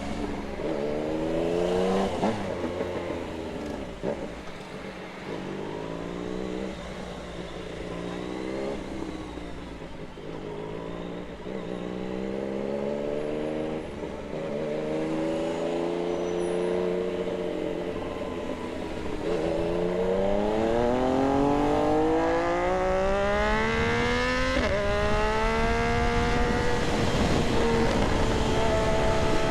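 Yamaha MT-09's three-cylinder engine under way, revving up and dropping back repeatedly as it shifts through the gears, then pulling in one long climb in the second half, holding high and easing off near the end.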